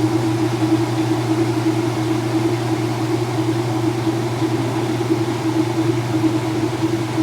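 1988 Kenmore washing machine (model 110.82870829) in its spin cycle: the motor and spinning drum give a steady hum that holds an even speed throughout.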